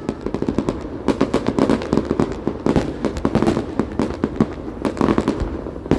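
Fireworks display going off in a rapid, unbroken barrage of sharp bangs and crackles, several each second.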